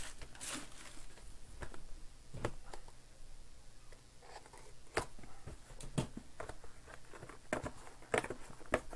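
Hands handling a cardboard trading-card box and its boxed inner packs: scattered light knocks, taps and rustles, with a few sharper knocks about halfway through and near the end.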